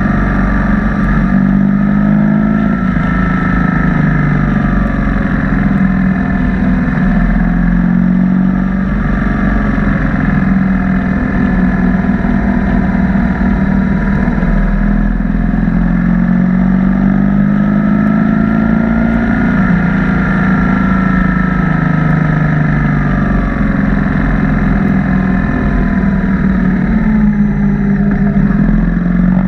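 BMW R1200 boxer-twin motorcycle engine running under way, its pitch slowly rising and falling several times as the rider opens and eases the throttle, over a steady low rumble.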